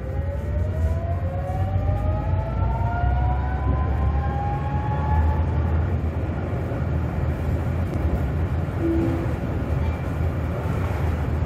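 Tatra KT4D tram heard from inside while running: a heavy low rumble with a traction-motor whine that rises in pitch over the first six seconds as the tram picks up speed, then fades into the running noise.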